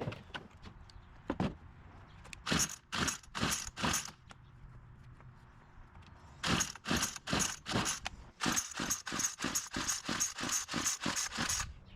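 Small two-stroke gas string trimmer being pull-started: three runs of quick rasping strokes, the last several a second, with the engine never catching. It fails to start.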